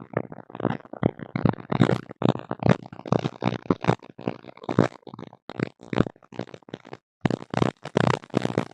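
Garbled, voice-like interference noise picked up in a tablet's audio: choppy fragments in quick short bursts, several a second, with a brief cut-out a little before the end.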